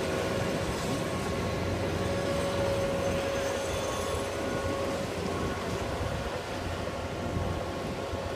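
Tracked tractor's 100 hp engine running steadily as it drives a rotary tiller through waterlogged mud, with a thin whine over the rumble.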